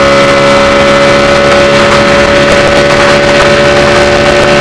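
Formula Renault 3.5 single-seater's engine at high, steady revs down a straight, its pitch creeping slowly upward, with a steady hiss under it.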